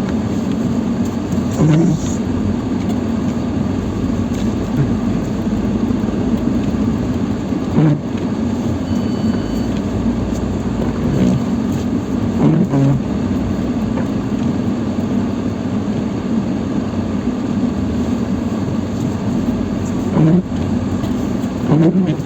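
Lada Niva Travel's engine running steadily under load as it crawls through deep snow in low range with the centre differential locked. A few brief changes in pitch break the even drone.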